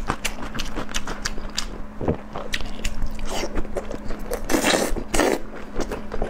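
Close-miked eating sounds of a person chewing black-bean-sauce noodles: many small wet mouth clicks and chews, with a longer, louder slurping stretch about four and a half seconds in.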